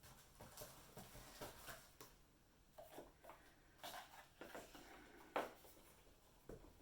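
Faint rustling and light clicks of packaging being handled, with one sharper tap about five seconds in.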